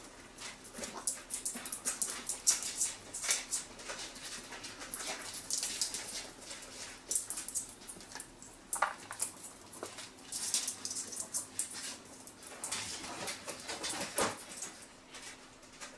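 Small sounds of a chihuahua puppy: irregular short, scratchy snuffles and clicks as it sniffs and moves about on a cloth mat.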